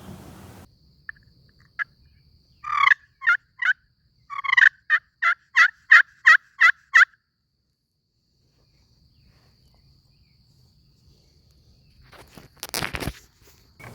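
Wild turkey calling: a short run of three sharp notes, then a run of about eight evenly spaced notes, about three a second. A brief rustle follows near the end.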